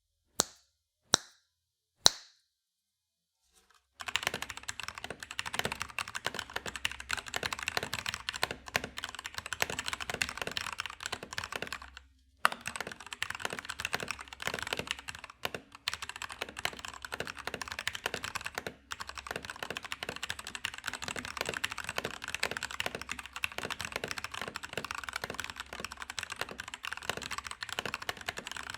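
Mechanical keyboard with Kailh switches (FL eSports 68, 65% layout): three single sharp key clicks, then fast continuous typing from about four seconds in, with a short pause around twelve seconds.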